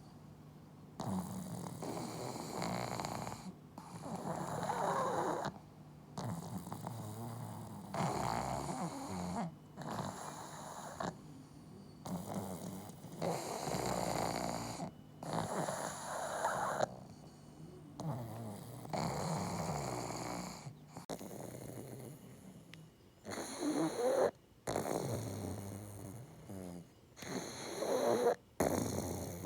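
Pug snoring, loud, one snore after another every two to three seconds, with a few short breaks.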